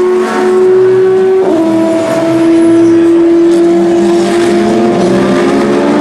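Le Mans prototype race cars at speed, engines running at a steady high pitch. About one and a half seconds in the note steps to a new pitch, then holds before a rougher engine sound builds near the end.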